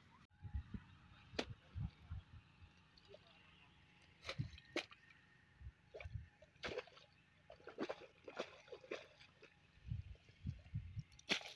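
Spade cutting and slapping wet mud in a flooded irrigation furrow, with squelching and splashing water: a string of irregular sharp strokes and dull thuds.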